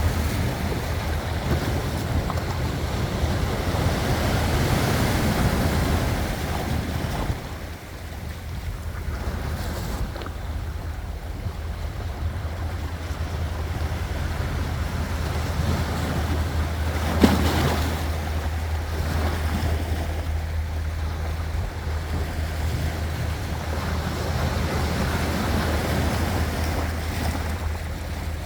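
Sea waves washing and breaking, swelling and easing in surges, with a steady low wind rumble on the microphone. A single sharp click about 17 seconds in.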